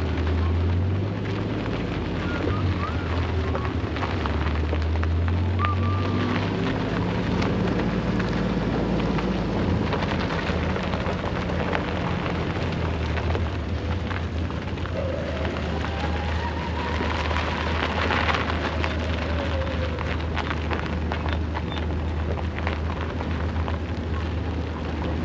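Off-road side-by-side vehicle driving on a gravel road: a steady low engine drone under a continuous crackle of gravel under the tyres.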